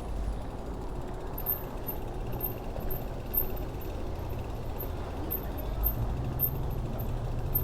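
Street traffic: a steady low rumble of motor vehicles, with one passing engine swelling about six seconds in.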